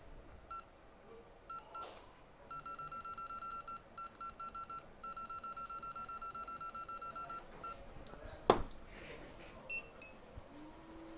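An electronic beeper sounds runs of short, high beeps, about six a second, in several bursts with brief gaps, like a bench station's keypad beeping as a button is held to step a setting. Near the end there is one sharp click, and a faint low steady hum starts just after.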